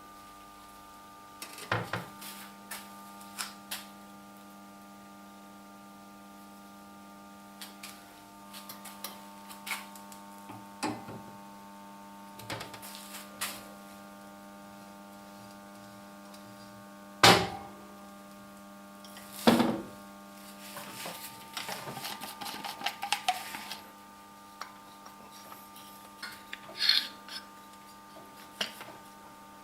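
Scattered knocks and clatter of parts and tools being handled during workshop assembly, over a steady electrical hum. Two sharp knocks about 17 and 19 seconds in are the loudest, and a rattling scrape follows for a few seconds.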